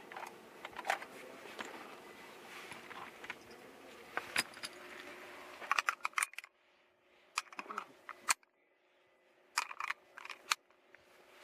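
Sharp clicks and small metallic clinks from gear being handled, in scattered groups. A steady background hum drops away about halfway through, leaving the clicks over near quiet.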